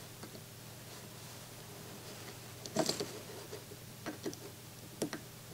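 Faint clicks and taps of small parts being handled and fitted into the unit on the workbench, a few sharp ones about three, four and five seconds in, over a low steady hum.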